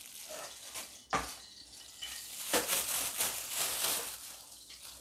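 A couple of sharp knocks of a steel cleaver and utensils on a wooden cutting board, then a light sizzling hiss from a steel wok on a gas burner starting about halfway through.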